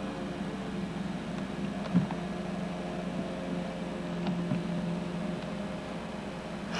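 Walk-behind gas rotary lawn mower engine running at a steady speed while mowing, with one short knock about two seconds in.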